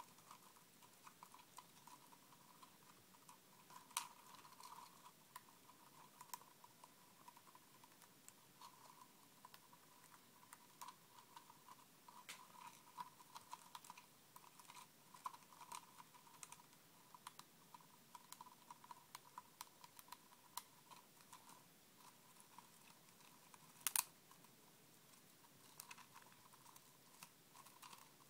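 Winter white dwarf hamster gnawing on a woven wicker treat ball: faint, rapid little clicks and crackles, with a couple of louder clicks.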